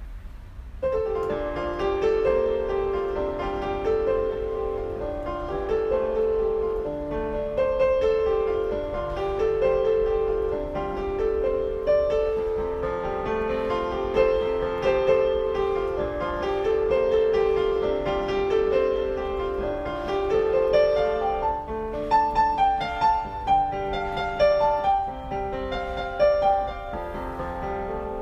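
Piano music: a continuous flowing run of notes.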